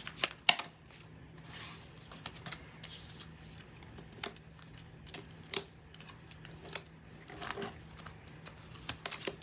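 Tarot cards being dealt from the deck and laid down on a table mat: irregular light taps and card snaps, the sharpest about half a second in.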